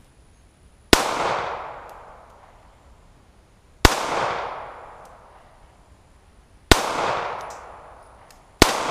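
Four slow, aimed shots from a Zastava M88A 9mm pistol, the first about a second in and the last near the end. Each crack is followed by a long rolling echo that fades over a second or more.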